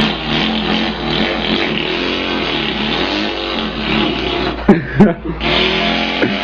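A man imitating an engine with his mouth: a continuous buzzing drone that wavers in pitch, broken by two sharp pops about five seconds in.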